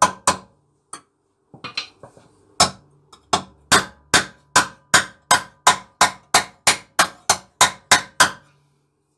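Steel hammer striking the steel jacking point panel on a car's underbody, each blow with a short metallic ring. A few scattered and lighter taps come first, then a steady run of blows at about two or three a second.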